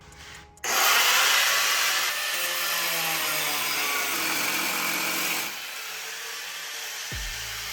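Angle grinder cutting metal: a harsh grinding hiss starts suddenly about half a second in, then drops to a lower level about five seconds in and keeps going.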